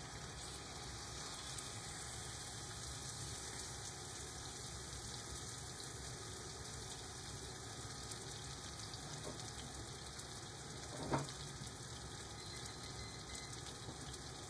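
Diced chicken sizzling steadily as it fries in hot olive oil in a skillet, with one brief knock about eleven seconds in.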